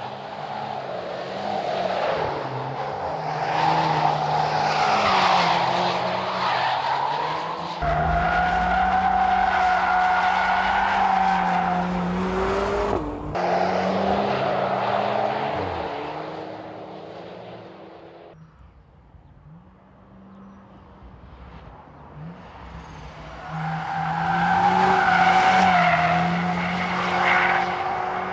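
Turbocharged four-cylinder hot-hatch engines revving and holding high revs while the cars drift, with tyres skidding. The sound changes abruptly at edits about 8, 13 and 18 seconds in, falls away for a few seconds, then swells again near the end.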